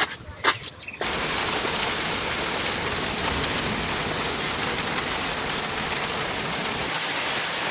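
A few sharp knocks, then about a second in an abrupt switch to heavy rain pouring down in a loud, steady hiss.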